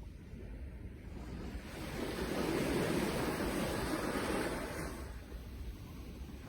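Sea waves breaking on a shore. One wave builds about two seconds in, crests, and washes back out by about five seconds.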